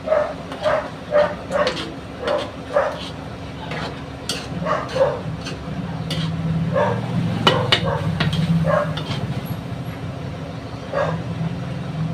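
A dog barking repeatedly in short yelps, in a quick run at first and then scattered, over a low engine rumble that swells around the middle. A spoon clinks now and then against a frying pan as it is stirred.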